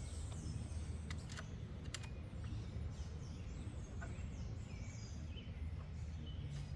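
Outdoor ambience: a steady low rumble with birds chirping. A few faint clicks, about one and two seconds in and again near four seconds, from a 4 mm Allen key working the seat screws.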